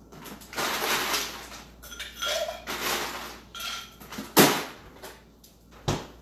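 Ice being fetched in the kitchen: a few stretches of clattering and scraping, a sharp clack about four seconds in, and a dull thump near the end.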